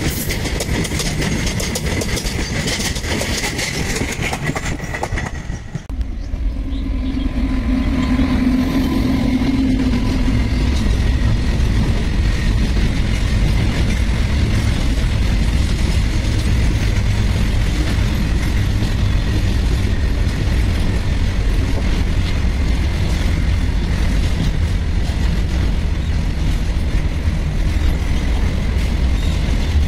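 Covered freight wagons of a long goods train rolling past, with the steady rumble and clatter of steel wheels on rail. The sound breaks off briefly about six seconds in and comes back as a steadier, heavier low rumble.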